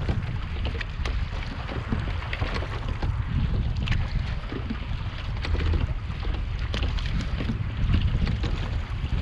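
Wind buffeting the microphone over the hiss and splash of water rushing past the hull of a small sailing boat under way, with many small splashes.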